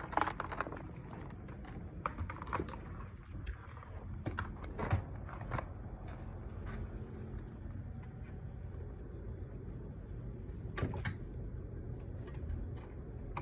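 Irregular clicks and taps from a freshly cleaned and reassembled mechanical keyboard being handled and plugged in, with a steady low hum underneath.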